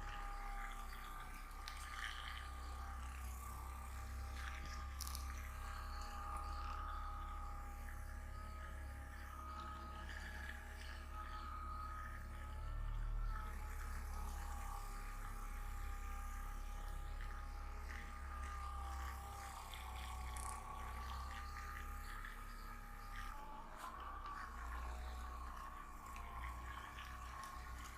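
Soft ambient background music of slowly wavering held tones over a low rumble, with a few faint clicks.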